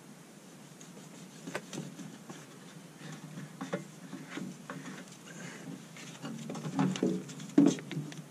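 Hands cleaning and moving battery cables in a metal battery box: a rag rustling, and scattered clicks and knocks from the cable ends that come thicker and louder toward the end.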